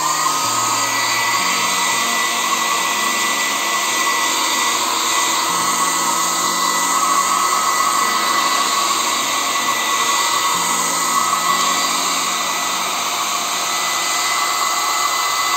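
Handheld hair dryer blowing air in a steady rush with a high, even whine, switching on at the start, used to dry a freshly washed computer motherboard.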